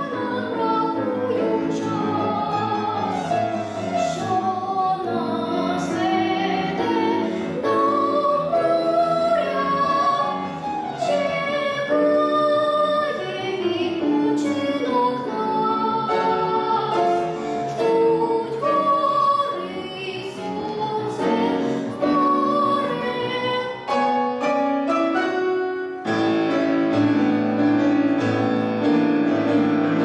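A girl sings a classical-style art song with grand piano accompaniment. Near the end her voice stops and the piano plays on alone.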